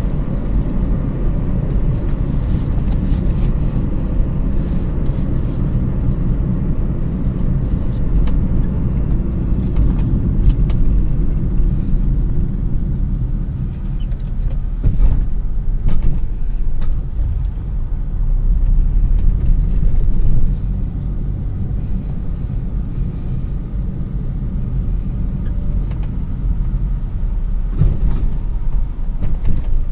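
Steady low rumble of road vehicles in motion, with occasional brief clicks and knocks over it.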